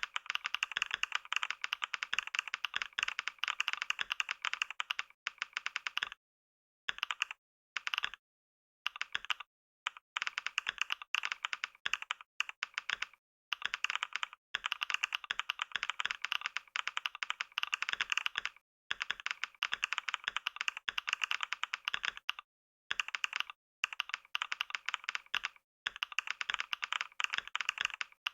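Fast typing on a computer keyboard at around 88 words a minute: a dense patter of keystroke clicks, broken several times by short pauses.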